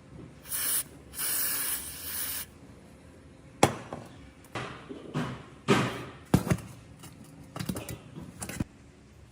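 Two short hissing bursts, the second lasting about a second, followed by scattered sharp clicks and knocks of handled objects.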